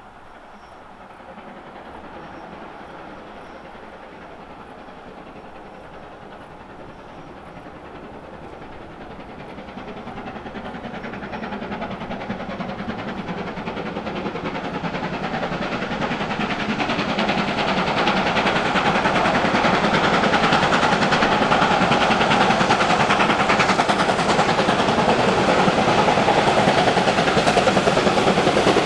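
BR Standard Class 7 'Britannia' Pacific steam locomotive 70000 working a train. Its exhaust and the train noise grow steadily louder over about the first twenty seconds as it approaches, then stay loud.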